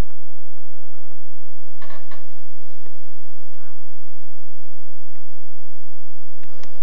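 Steady electrical hum: two held tones under a light hiss, broken by a few short clicks.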